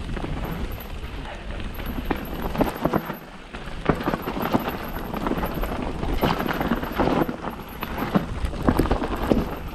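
Mountain bike descending rocky dirt singletrack: tyres crunching over stones and roots, with the bike clattering and knocking irregularly over the bumps. A steady low rumble of wind on the microphone runs underneath.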